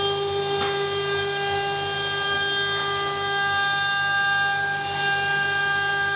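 CNC wood router's spindle running with a steady whine as its bit mills a shallow recess into a wooden panel.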